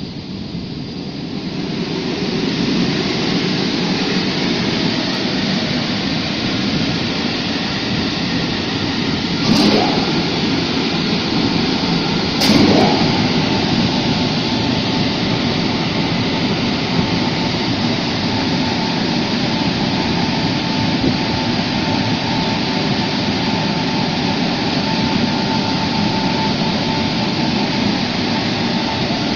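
Air-dryer blowers of a tunnel car wash running with a steady, loud roar that swells in over the first couple of seconds. Two brief sharp knocks come about ten and twelve seconds in.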